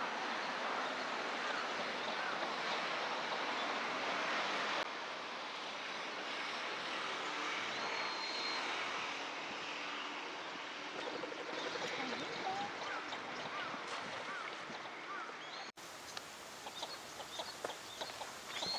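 Northern shoveler ducks giving a few soft calls over a steady background hiss, with faint high-pitched calls of other birds.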